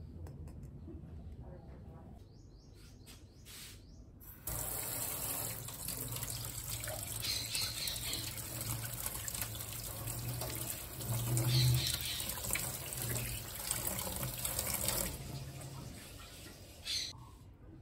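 Kitchen tap running through a spray aerator into a steel sink while eggs are rinsed and rubbed by hand under it. The water comes on suddenly about four seconds in and stops about fifteen seconds in.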